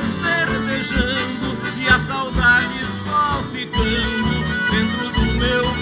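Live band music: an instrumental passage in which a melody lead with gliding notes plays over a steady, pulsing bass.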